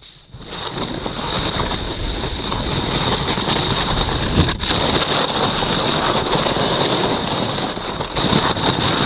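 Splitboard sliding and scraping over hard-packed snow on a downhill run, a steady rushing noise mixed with wind buffeting the camera microphone, dipping briefly about four and a half seconds in.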